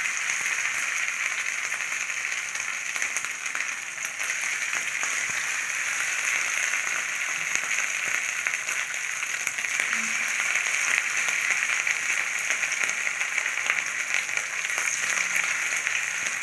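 Marinated chicken pieces frying in hot oil in a kadai: a steady, dense sizzle and crackle.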